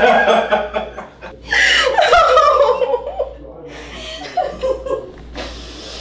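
A person laughing and exclaiming without clear words: a long falling cry about a second and a half in, then softer wavering vocal sounds.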